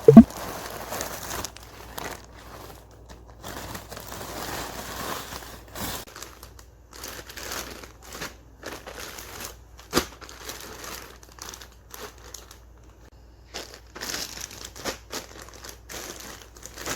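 Packaging being handled during an unboxing: irregular crinkling and rustling, with a short loud squeak at the very start and a sharp click about ten seconds in.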